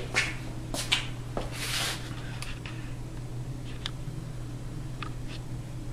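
Quiet shop room tone: a steady low hum, with a few light handling clicks and a brief scratchy rustle about two seconds in. The band saw is not running.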